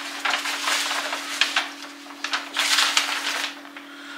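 Aluminium foil being handled, crinkling and rustling in irregular crackly bursts over a steady low hum.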